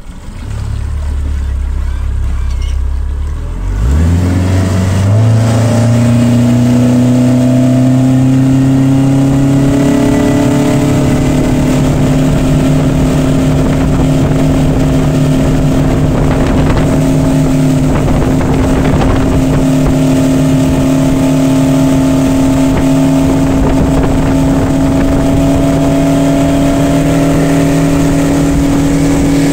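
A 2020 Mercury 115 four-stroke outboard running at low speed. About four seconds in the throttle is opened and the revs climb quickly. The engine then settles into a steady high cruise as the boat planes, with another small rise in revs around ten seconds in.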